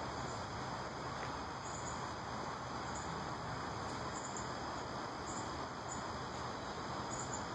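Yard ambience: a steady background hiss with faint, high insect chirps every second or so.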